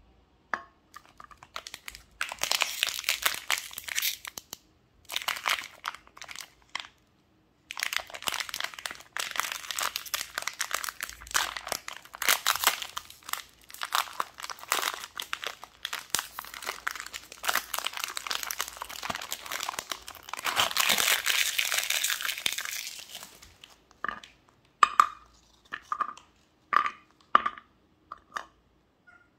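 Oreo biscuit pack's plastic wrapper crinkling and tearing as it is opened and worked by hand, in long stretches. Near the end, about five short clicks as the biscuits are set down on a plate.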